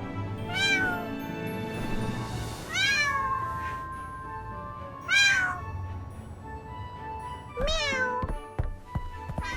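A kitten meows four times, each a short call that rises then falls, over soft background music. A few soft knocks come near the end.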